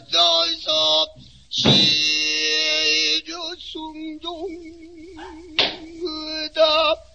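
Pansori singing: a solo voice in short phrases and long wavering held notes. Two sharp strokes of the buk barrel drum come about a second and a half in and again near six seconds.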